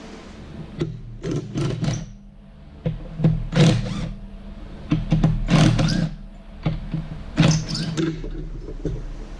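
Hand tools working on the handlebar mounts of a motorcycle: irregular short bursts of wrench or ratchet noise and metal parts being handled, over a steady low hum.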